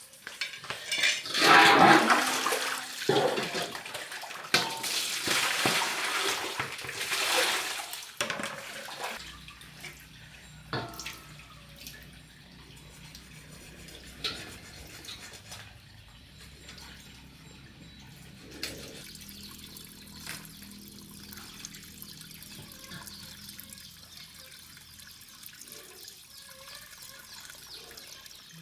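Water pouring and splashing in loud rushes for the first several seconds, then quieter water sounds with a few sharp knocks and a low steady hum underneath.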